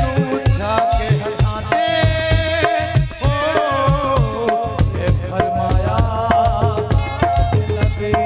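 Sufi devotional music: harmoniums play a sustained melody over a fast, steady rhythm on a hand drum.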